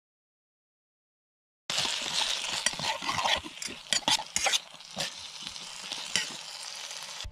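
Metal fork stirring and scraping food in a metal camping pot, with repeated clinks of fork on pot over a steady hiss. It starts about a second and a half in.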